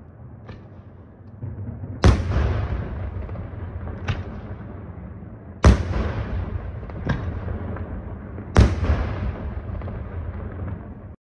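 Aerial fireworks shells bursting: three loud bangs about three seconds apart, with smaller reports between them, each followed by a long rolling echo.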